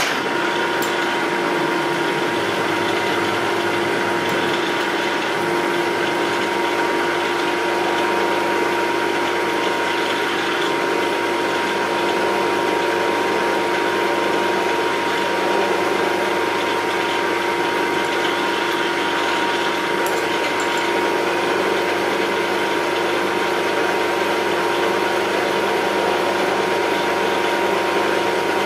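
Milling machine running steadily as its twist drill cuts a pilot hole into thick metal plate, with a constant hum and a thin high whine.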